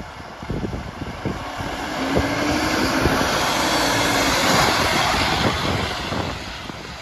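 Scania P-series fire engine driving past close by, its diesel engine and tyres growing louder over a couple of seconds and then fading as it goes by.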